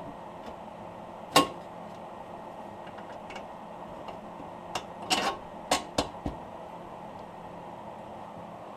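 Scattered metallic clinks and knocks as a bolt is worked into the lower mount of a car's rear coilover: one sharp clink about a second and a half in, then a quick run of clinks and knocks about halfway through, over a steady background hum.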